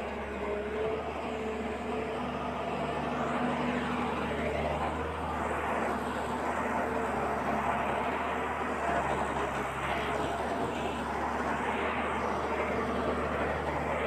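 A steady engine-like drone with a constant hiss, getting slightly louder over the first few seconds and then holding even.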